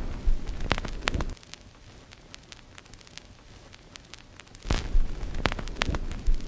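Vinyl record crackle: sharp pops and clicks scattered over a hiss. The noise is louder, with a low rumble, for the first second or so and again from nearly five seconds in, and softer in between.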